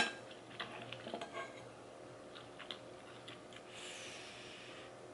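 Metal spoon clinking against a ceramic bowl of seafood gumbo: one sharp clink at the start, then lighter clicks and scrapes over the next second and a half. About four seconds in comes a soft breathy slurp as a spoonful of rice reaches the mouth.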